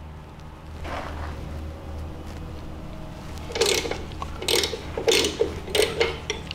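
Ratchet wrench clicking in a run of back-and-forth strokes, starting about three and a half seconds in, as the bottom bolt of a VW swing-axle spring plate is loosened.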